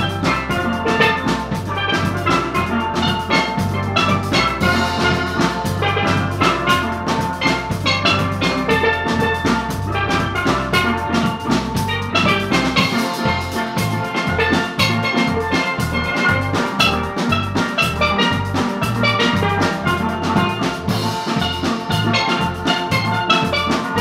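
Live steel band playing: several steel pans carrying the tune over an electric bass guitar and a drum kit. About halfway through, the bass changes from held notes to short, choppy notes.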